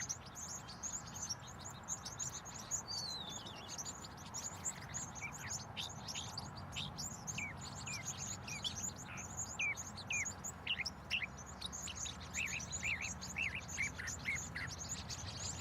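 Songbirds chirping: many short, quick, falling chirps, some in fast runs, over a steady low background rush.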